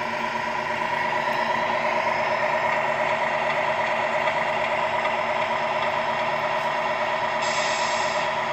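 Tamiya 1/14 Scania R620 RC truck's MFC-01 sound unit playing a simulated diesel truck engine through the model's small speaker, running steadily as the truck drives by.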